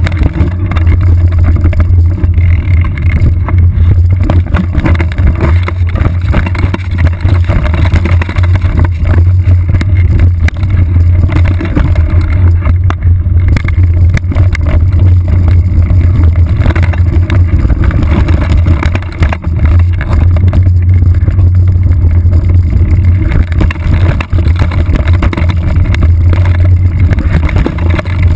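Steady low rumble of wind and vibration through a seat-mounted GoPro HD2 on a bike riding a rough trail, with constant small knocks and rattles from the bumps.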